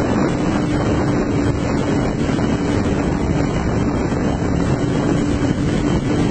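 Wind rushing over the microphone of a vehicle moving at high highway speed, with a steady engine tone underneath.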